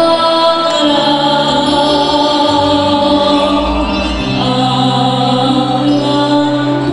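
Music for a stage dance routine: long held choir-like voices over sustained bass notes, the bass shifting pitch a couple of times.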